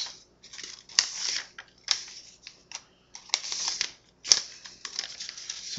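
A sheet of paper being folded into thirds by hand: rustling, with several sharp crackles as the folds are pressed into creases and short quiet gaps between.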